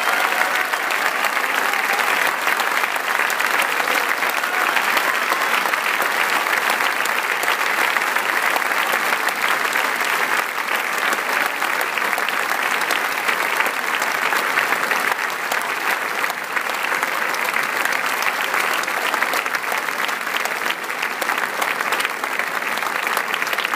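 Large theatre audience applauding steadily: many hands clapping in a dense, unbroken ovation for the bowing cast.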